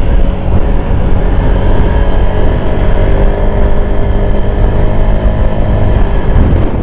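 Heavy wind buffeting on the microphone of a moving scooter, over the steady drone of the Honda Airblade 150's single-cylinder engine running at an even pitch.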